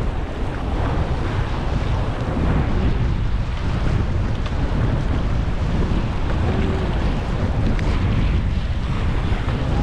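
Wind buffeting the microphone in a steady low rumble, with sea waves washing on the shore underneath.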